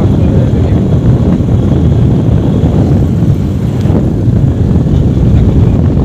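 Steady wind rumble buffeting the microphone of a moving motorbike, mixed with the bike's road and engine noise.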